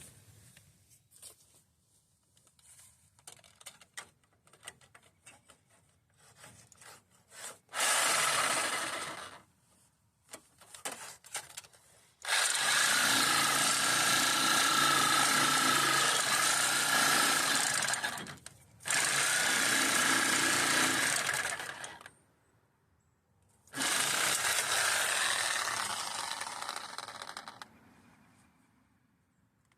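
Power saw cutting through a steel truck support, running in four bursts: a short one about eight seconds in, a long cut of about six seconds, a brief stop, and two more, with light knocks and handling clicks before it starts. The blade is worn.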